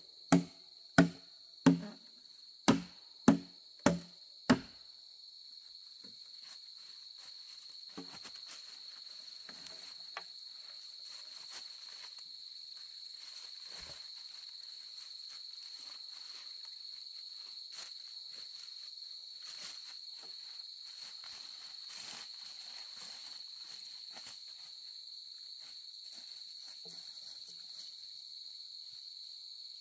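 Machete chopping into a green bamboo stalk: seven sharp strikes at about one or two a second over the first five seconds. A steady, high insect drone then carries on, with faint rustling steps in dry bamboo leaves.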